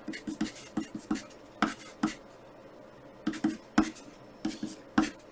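Pencil writing on graph paper: a series of short strokes and taps with quiet gaps between, the sharpest taps a little before four seconds and about five seconds in.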